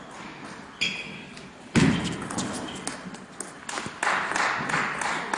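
A table tennis ball struck with a sharp ringing ping about a second in, then a sudden loud shout in the hall followed by a run of quick claps as the point ends.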